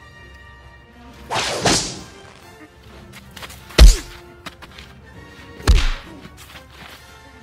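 Background music with a sharp noisy burst about a second and a half in, then two heavy thuds about two seconds apart, the first the loudest.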